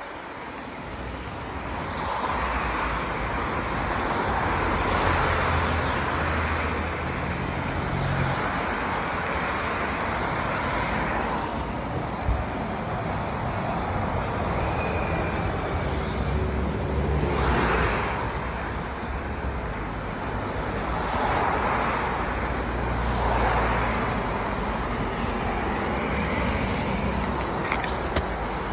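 Road traffic: cars passing one after another, their tyre and engine noise swelling and fading every few seconds over a steady low rumble.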